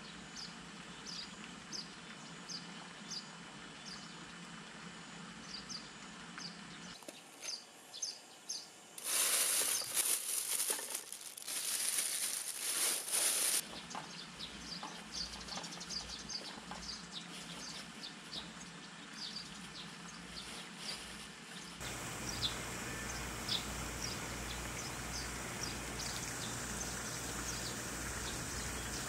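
Rural outdoor ambience with short, high bird chirps repeating every second or so. A loud, high-pitched hiss rises for about four seconds in the middle, then stops.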